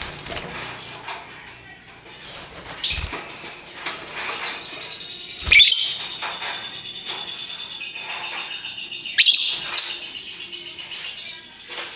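Lovebirds calling: several loud, sharp shrieks and a long rapid trilling chatter (the ngekek call) held for several seconds in the second half.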